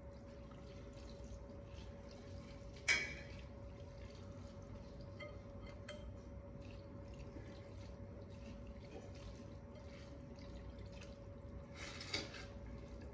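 Hands squishing and mixing soft noodles in broth in a glass bowl, with faint wet squelches and small clicks. A single sharp knock comes about three seconds in, and a short slurp near the end as a handful of noodles goes into the mouth.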